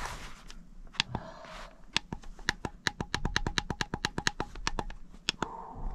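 Buttons on a Sunbeam heated blanket controller pressed over and over as the setting is changed. A few single clicks come first, then a fast run of about six clicks a second for roughly three seconds.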